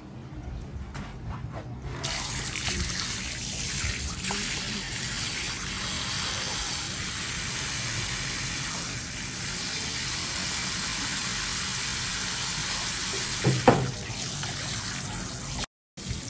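Water running from a tap into a sink: a steady rush that starts about two seconds in, with a single knock near the end.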